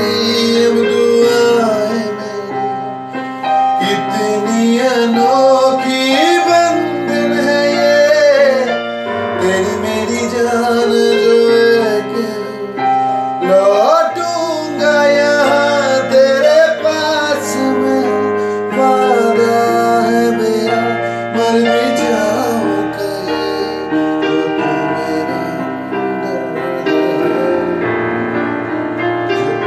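Yamaha portable electronic keyboard playing a Hindi romantic song in a piano-like tone, with a sung melody over the chords that bends and wavers in pitch.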